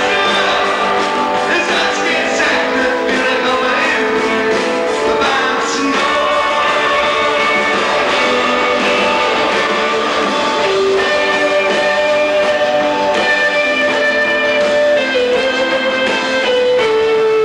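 Live rock band playing, with guitars carrying long held notes over the band.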